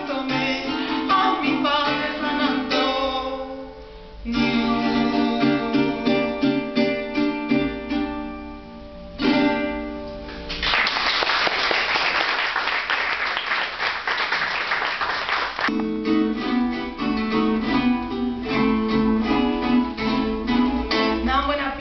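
Venezuelan folk song: a woman singing over a strummed small guitar. The song ends about halfway through, followed by several seconds of applause, and then the strumming starts again.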